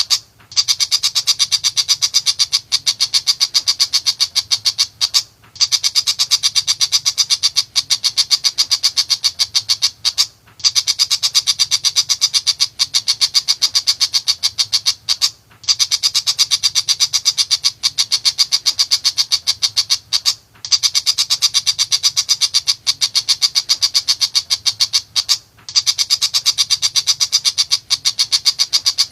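Tiger shrike (pentet macan) singing a loud, fast chatter of rapidly repeated sharp notes, in phrases about five seconds long separated by brief pauses.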